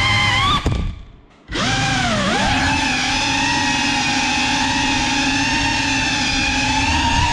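GEPRC CineLog 35 cinewhoop's brushless motors and ducted propellers running on 6S, a high, steady multi-tone whine. Under a second in the motors cut out almost to silence, then spool back up with a brief dip and rise in pitch and settle into a steady whine.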